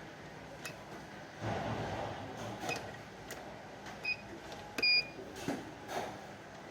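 Clicks and rustling of handling, then two short high electronic beeps about four and five seconds in, the second louder: a multimeter's continuity beep while components of a sander's circuit are tested for open connections.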